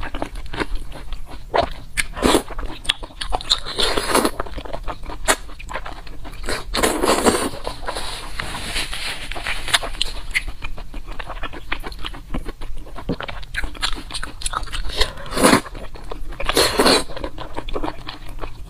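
Close-miked wet chewing and mouth smacking of soft, fatty braised jiguanyou (pork intestinal fat), with a few louder slurps or sucks scattered through.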